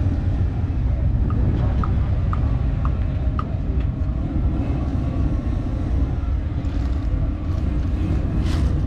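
Steady low rumble of a car engine and road noise. A run of about five short, evenly spaced high beeps sounds in the first half, and a brief hiss comes near the end.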